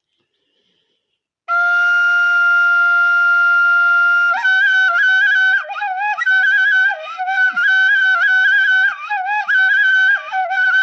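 Background music on a solo wind instrument, flute-like: it comes in about a second and a half in with one long held note, then from about four seconds plays a quick, ornamented melody with trills and short breaks.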